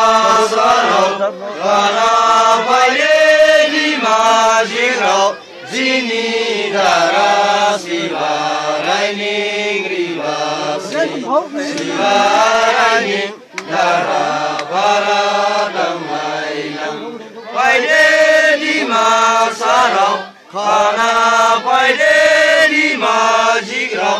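Group of men chanting a song together in unison, long held phrases broken by short pauses every few seconds.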